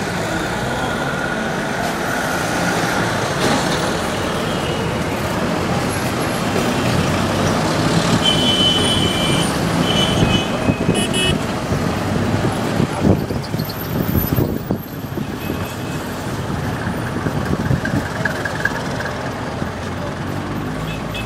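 Engine and road noise of a moving vehicle heard from inside it, with traffic passing. A few short high-pitched toots sound about eight to eleven seconds in.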